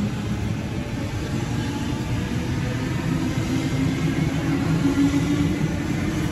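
Double-deck Sydney Trains electric train pulling out of the platform, a steady rumble of wheels and running gear with a motor hum. A faint whine rises slowly in the second half as it gathers speed.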